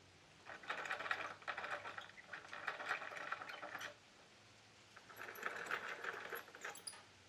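Rapid rasping and scratching of a hand tool worked against wood, in two spells of about three seconds and two seconds with a short pause between.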